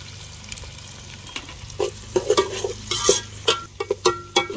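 Sliced onions and green chillies sizzling in hot oil in a pan, a steady frying hiss. From about two seconds in, a utensil stirring them clinks and knocks against the pan.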